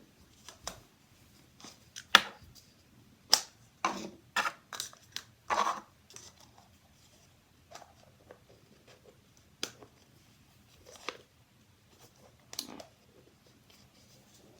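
Small plastic toys being handled: irregular clicks, taps and rustles, a dozen or so scattered throughout, the sharpest about two and three and a half seconds in.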